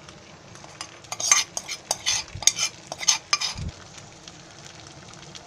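A steel spoon scraping and clinking against a frying pan for a couple of seconds from about a second in, over a steady sizzle of paneer masala cooking in the pan. A dull knock comes about three and a half seconds in.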